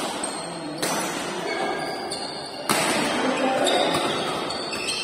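Badminton rackets striking a shuttlecock in a rally, three sharp hits: at the start, about a second in and, loudest, just before the three-second mark. Each hit echoes in the large hall.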